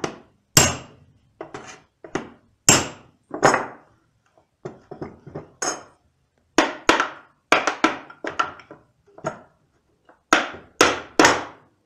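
Hammer blows on a hoop driver, driving the metal hoop down to tighten the staves of a wooden bucket: sharp knocks, irregular and coming in quick groups, with brief pauses.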